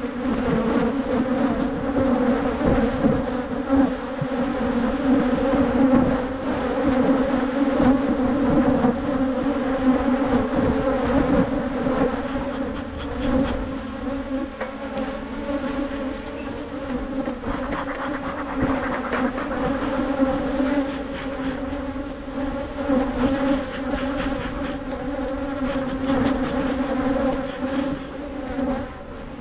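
Honeybees buzzing thickly around the microphone during an open-hive inspection: a loud, steady droning hum. The bees are agitated and defensive.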